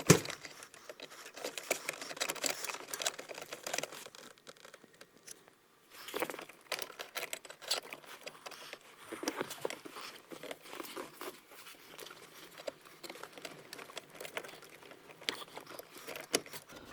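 Scattered small clicks, taps and rustling of hands working a new shift cable into place and attaching it.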